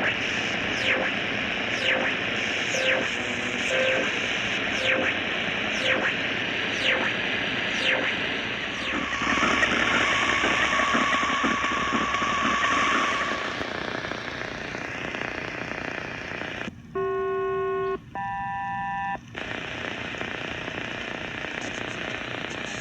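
Shortwave static from a Tecsun PL-880 receiver tuned between 4 and 5 MHz. For the first nine seconds a falling chirp sweeps through the hiss about once a second. Then comes a louder noisy stretch with a steady tone, and near the end two short bursts of several steady tones sounding together.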